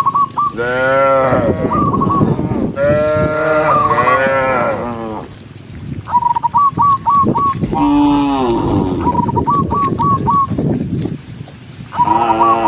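Cattle mooing: three long moos that bend up and down in pitch, then another starting near the end, the third one lower than the rest.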